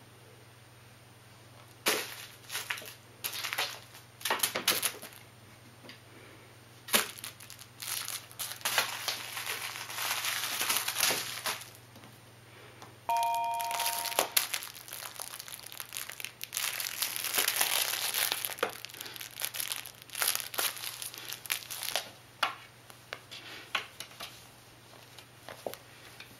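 Crinkle filling inside a plush Kong Kickeroo kicker toy rustling in irregular bursts as a kitten grabs, bites and kicks it. A brief two-tone ding sounds about halfway through.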